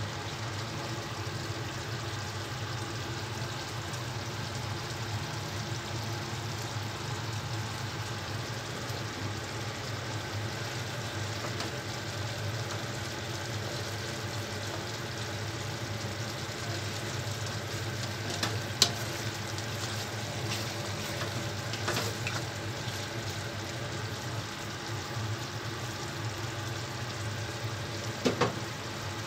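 Chicken and potato stew simmering in sauce in a wide pan, a steady bubbling hiss with a low hum underneath. A spatula knocks against the pan a few times in the last third.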